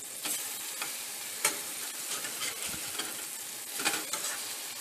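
Turkey patties sizzling steadily in hot oil in a stainless steel frying pan as they are flipped with a metal spatula. A few sharp scrapes and taps of the spatula on the pan stand out over the sizzle.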